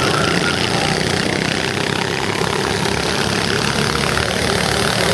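Small go-kart engines running steadily at speed on a kart track.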